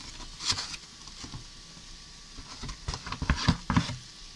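Wooden spatula pushing sliced char siu pork around a frying pan: scattered knocks and scrapes against the pan, coming thickest about three seconds in.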